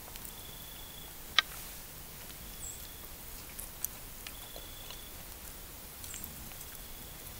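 A fork clicking against a supper plate a few times while eating, one click sharp and loud about a second and a half in, over a low steady outdoor hiss. A faint short high note repeats about every two seconds in the background.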